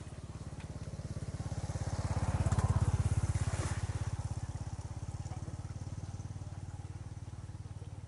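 A small engine running steadily with a fast, even pulse; it grows louder to a peak about three seconds in and then fades as it passes by.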